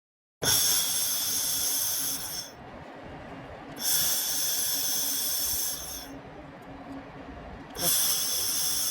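Handheld fiber laser welder firing in three welds of about two seconds each, a harsh hiss, with a quieter hiss between the welds.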